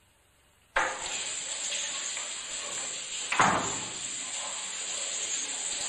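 Near silence, then under a second in a shower starts to be heard: a steady hiss of spraying water that begins abruptly. A brief louder sound that falls in pitch comes about three and a half seconds in.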